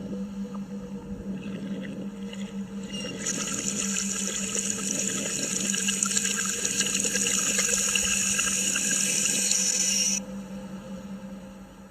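Water running from a tap into a sink, played backwards: a hiss that builds about three seconds in and cuts off suddenly near the end, over a steady low hum.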